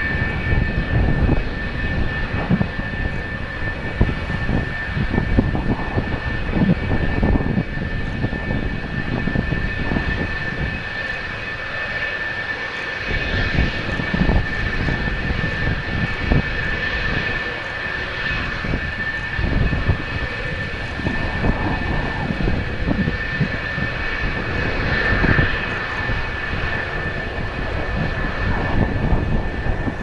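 F-4EJ Kai Phantom IIs' J79 turbojet engines running as the jets taxi: a steady high whine over a low rumble.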